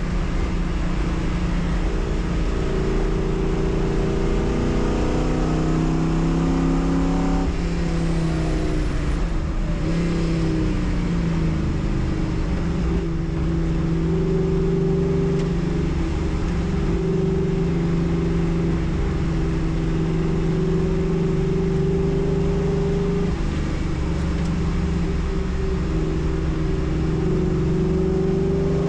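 Race car engine running hard at speed, its revs climbing with sharp drops for upshifts about seven seconds in and again near the end.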